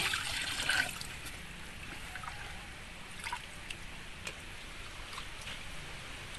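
Water poured from a jug into a metal pot of raw chicken pieces, the pouring ending about a second in, then hands washing the chicken in the water with small scattered splashes.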